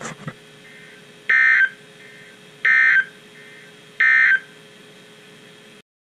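A weather radio sounds the Emergency Alert System end-of-message signal: three short, identical bursts of digital data tones a little over a second apart, over a faint steady hum. They mark the end of the broadcast warning.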